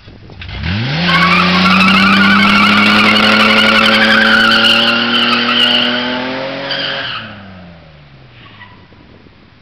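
1991 Nissan Pathfinder doing a burnout: the engine revs up sharply about half a second in and holds high revs while the tyres spin and squeal. About seven seconds in the revs drop, and the sound fades as the truck pulls away.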